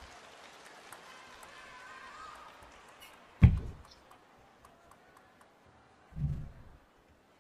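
Quiet hall ambience between table tennis points, broken by one sharp low thump about three and a half seconds in and a short low sound near the end.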